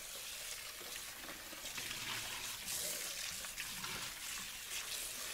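Faint, steady hiss of room noise, with a few light ticks.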